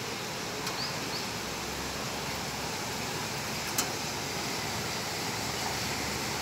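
Steady hiss of rain falling over a flooded street, with one short sharp click a little before four seconds in.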